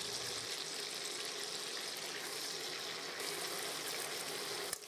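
Flour-coated chicken pieces sizzling as they fry in melted butter and oil in a saucepan: a steady hiss.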